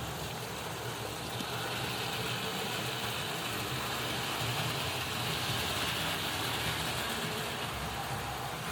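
Hornby Dublo model trains running on the layout: a steady mechanical whirr and rattle of locomotive motors and wheels on the track, swelling slightly midway.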